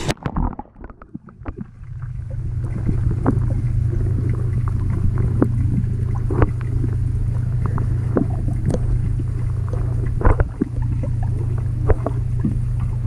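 A splash as the canoe capsizes, then the muffled sound of a camera underwater in a swimming pool: a steady low hum with scattered sharp clicks and knocks.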